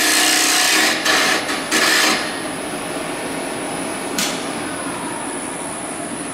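Carbide hollowing tool (a 90-degree carbide detailer) cutting the inside of a spinning wood bowl on a lathe: a loud shaving hiss that breaks off twice and stops about two seconds in as the tool reaches full depth. The lathe then keeps running with a steady hum and a thin high whine, with a single click about four seconds in.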